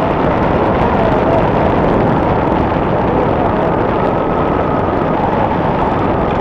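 Paramotor engine and propeller running steadily in powered flight, a loud even noise with no change in pitch.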